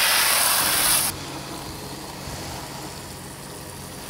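Garden-hose spray nozzle jetting water onto an inflatable dinghy's tube, a loud hissing spray that cuts off about a second in. Then a quieter stream of water pours from a cockpit shower head into a plastic bucket.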